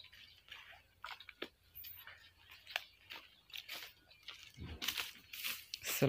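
Footsteps crunching on dry bamboo leaves: scattered irregular crackles that grow a little denser and louder near the end.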